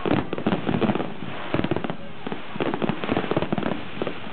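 Fireworks display: aerial shells bursting in rapid volleys, a dense run of sharp bangs and crackling that comes in clusters with short lulls between them.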